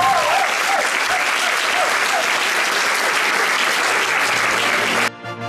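Theatre audience applauding steadily, with a whistle or two gliding over the clapping in the first couple of seconds. About five seconds in the applause cuts off abruptly and music starts.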